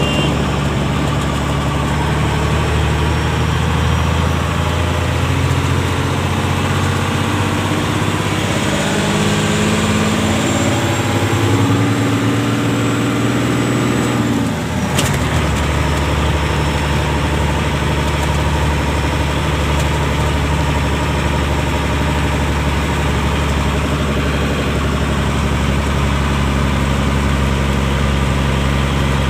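Truck's diesel engine running, heard from inside the cab. Over the first half its note climbs steadily as the truck pulls; after a sudden cut it runs at a steady pitch.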